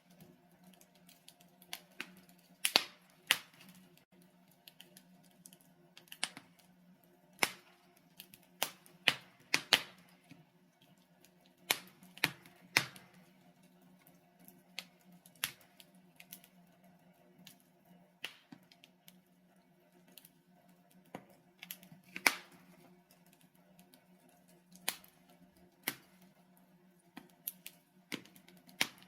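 Wood fire burning in a fireplace: logs crackling with irregular sharp pops and snaps, a few much louder than the rest, over a steady low hum.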